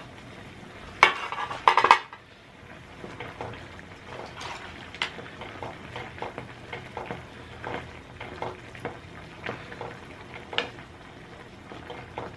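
Utensils clattering against a pot and dishes, with a loud burst of clanks about a second in, then scattered light clinks and scraping as the food is stirred.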